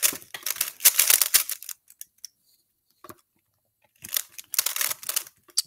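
3x3 Rubik's Cube being turned rapidly by hand, most likely scrambled: quick runs of plastic clicks as the layers snap round for under two seconds, a pause, then another flurry of clicks about four seconds in.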